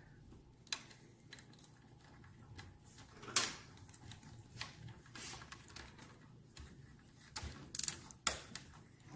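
Scattered light clicks and knocks of hand tools and small metal parts being handled on an engine, the sharpest about three and a half seconds in.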